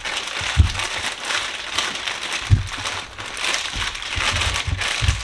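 Zip-top plastic bag crinkling steadily as raw chicken pieces inside are kneaded by hand to coat them in Cajun seasoning, with a few dull low thumps.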